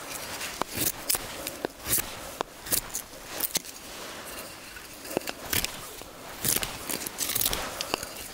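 Malanika puukko knife carving dry spruce: irregular, sharp slicing and scraping strokes as shavings come off the wood, a few with a brief thin ring.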